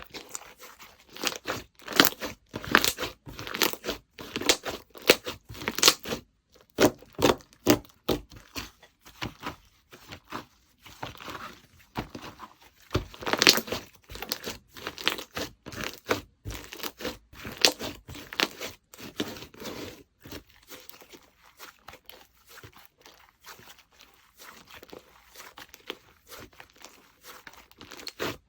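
Slime being squeezed, stretched and pressed by hand, giving irregular sticky clicks and crackling pops. The pops are quieter over the last several seconds.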